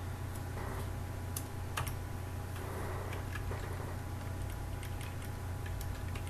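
Computer keyboard keys clicking in irregular taps as code is typed, over a steady low hum.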